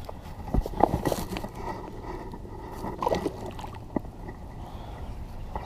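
Water sloshing and gurgling at the water's edge, with scattered small clicks and knocks and a loud burst near the end.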